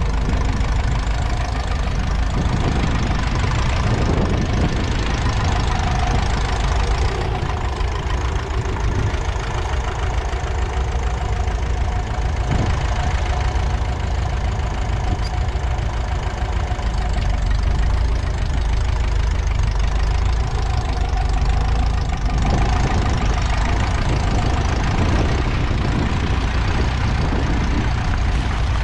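Ferguson TEF20's 2.1-litre four-cylinder diesel engine running steadily under load, pulling a two-furrow mounted plough through the soil.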